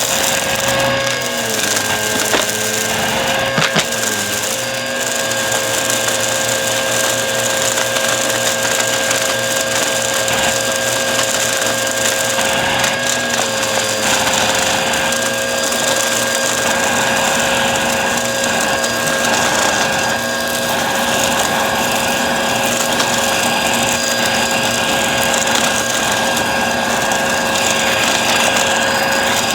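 Bissell vacuum cleaner running steadily, its motor note with an airflow hiss. The pitch sags briefly a couple of times in the first five seconds and again about 13 seconds in, with a sharp click around four seconds in.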